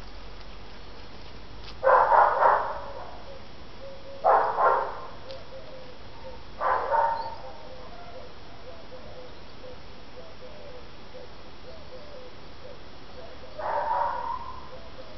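A dog barking in short bouts: a quick run of about three barks, then two short pairs a couple of seconds apart, and a quieter bout near the end.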